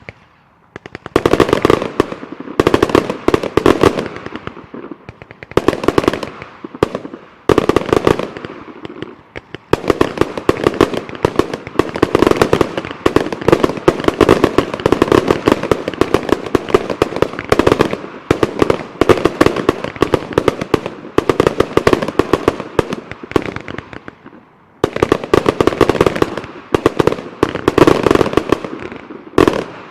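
A 1-inch multi-shot fireworks cake firing rapid volleys of shots. The bursts are separated by short pauses, with a long unbroken barrage through the middle and a brief lull shortly before the end.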